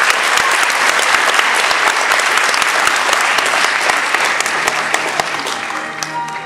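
Theatre audience applauding, the clapping dying away near the end as music starts to come in.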